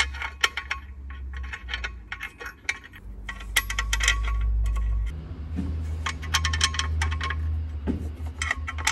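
Clutch cover bolts clinking, in clusters of quick metallic clicks, as they are handled and started by hand into the flywheel to hold the cover and pressure plate. A steady low hum runs underneath.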